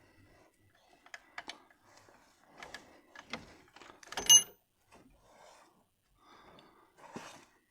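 Metal spanner clicking and scraping on brake-pipe fittings and bolts as they are worked loose by hand, with one loud sharp metallic clank that rings briefly about four seconds in.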